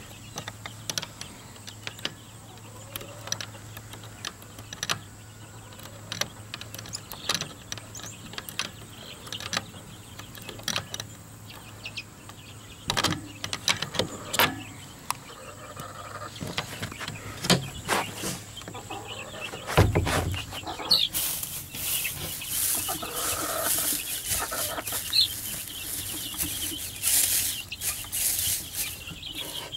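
Chickens clucking, with scattered clicks and knocks throughout and one heavy thump about two-thirds of the way through, followed by rustling of dry straw.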